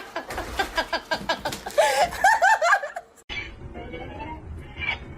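A person laughing in quick, repeated bursts for about three seconds, then it cuts off abruptly and a quieter background follows.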